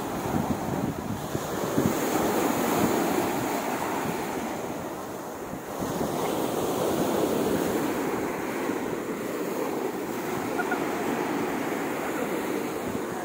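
Sea surf breaking on a sandy beach, a steady wash that swells and eases as the waves come in, with wind buffeting the microphone.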